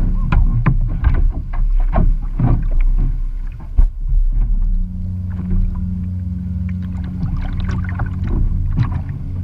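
Choppy water slapping and splashing against the plastic hull of a sit-on-top kayak, with paddle splashes, over a steady low hum. The splashes come in clusters in the first three seconds and again near the end.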